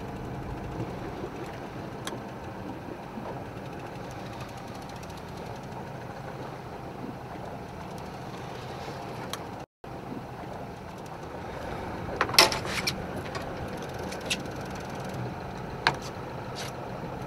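Boat engine running steadily with a low hum. It cuts out for a moment about ten seconds in, and a few short clicks come in the second half.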